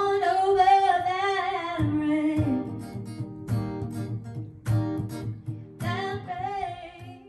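A woman singing into a microphone to a strummed acoustic guitar, holding long notes; the song fades out at the end.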